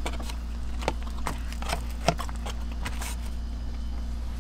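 A person chewing a mouthful of sandwich: a string of short, irregular wet clicks and smacks, the sharpest about two seconds in, over a steady low hum.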